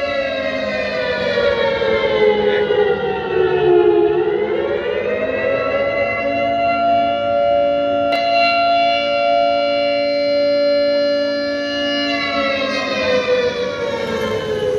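A siren wailing. Its pitch sinks slowly for about four seconds, swoops back up, holds steady for several seconds, then sinks again near the end.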